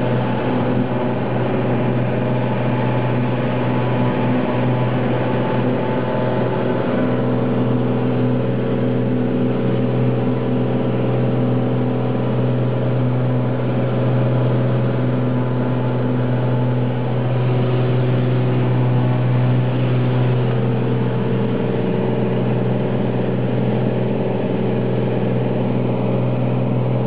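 Cessna T206's turbocharged six-cylinder engine and propeller droning steadily in flight, heard from inside the cabin.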